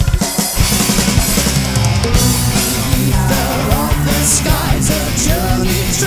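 Progressive rock band track playing, with drum kit and bass driving a steady beat. From about halfway a lead melody with bending, gliding notes comes in.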